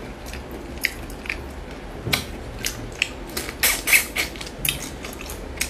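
Cooked hermit crab being pulled apart by hand and eaten, with irregular sharp clicks and crackles of shell and legs breaking, thickest a couple of seconds in.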